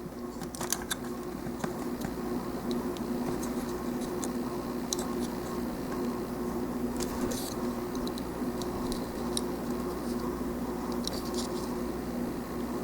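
Small clicks and scratches of plastic model kit parts being handled and pressed onto pegs, irregular and light, over a steady low hum.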